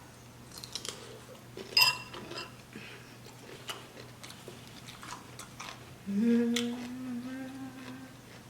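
Close-up crunchy chewing of cucumber with onion, in Bloves sauce, with a loud sharp crack about two seconds in. Near the end comes a hummed "mmm" of enjoyment, lasting about two seconds.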